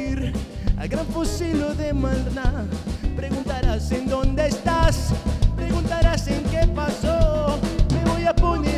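Live band playing an upbeat song on drum kit, electric guitar and keyboard, with a steady driving beat.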